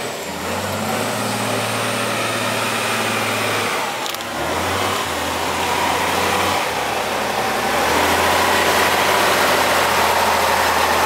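Diesel engine of a Tatra 6x6 truck-trial truck working hard under heavy load as it churns through a flooded mud pit, with mud and water sloshing. The engine note steps up and down several times and is loudest near the end.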